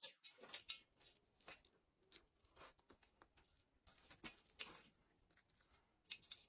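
Faint chewing and mouth smacks of someone eating kekel and injera, a run of short wet clicks, busiest in the first second and again around four seconds in.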